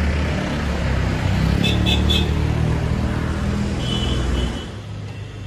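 A motor vehicle passing close by on the road: its engine and tyre rumble swells, then fades away about four and a half seconds in. Three quick high beeps come near the middle, and a longer one follows a little later.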